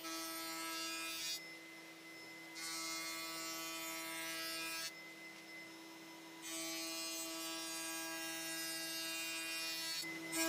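Router in a router table running with a steady high whine while a plywood blade edge is fed past the bit and rounded over. The cutting hiss drops away twice, briefly, about a second and a half in and again around five seconds in, while the motor keeps running.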